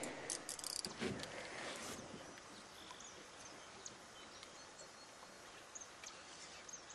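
Quiet outdoor ambience: a faint steady hiss with a few soft knocks in the first second and several short, high bird chirps scattered through.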